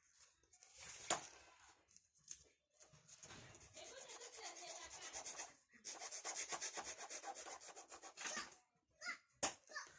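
Quick back-and-forth rubbing strokes in two runs of a few seconds each, with a sharp knock about a second in.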